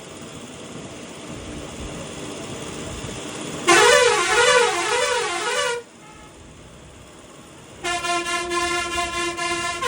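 Truck horns sounding over rising vehicle noise. First comes a loud warbling horn call for about two seconds, its pitch swinging up and down about twice a second. Near the end a steady horn blast follows.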